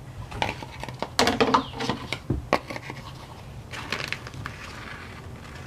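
Scrapes and clicks of an oil bottle and funnel being handled while engine oil is added to a pressure washer, over a steady low hum.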